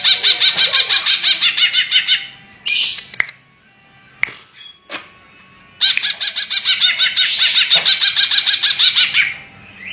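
Leafbird (cucak ijo) singing fast runs of sharp, repeated high notes at about eight a second, in two long phrases with a pause about two seconds in and a few sharp clicks during the pause.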